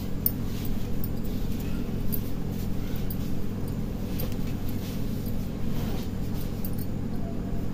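A steady low mechanical hum, even and unchanging throughout.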